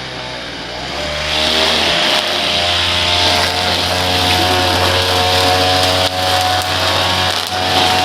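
Small petrol engine of lawn-care equipment running under power, picking up speed in the first second or two and then holding a steady pitch, with brief dips near the end.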